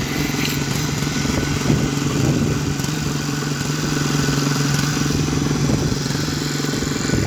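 Small engine of a concrete needle vibrator running steadily at constant speed, a continuous motor-like drone with a steady hum.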